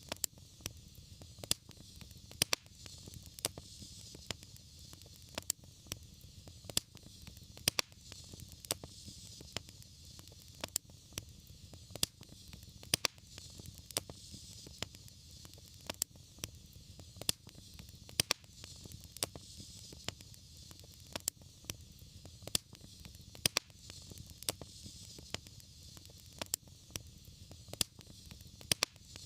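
Wood fire crackling steadily over a soft hiss and low rumble of burning, with irregular sharp pops about once or twice a second.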